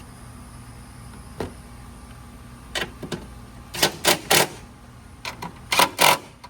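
Short bursts of mechanical clicking and rattling, in irregular clusters, from parts being fitted back into the engine bay as the coolant reservoir is refitted. The loudest bursts come in two groups, about four seconds in and again near six seconds.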